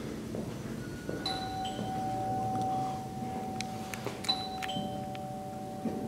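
Elevator hall arrival chime sounding twice, each time a higher note followed by a lower held note, as a car arrives at the landing.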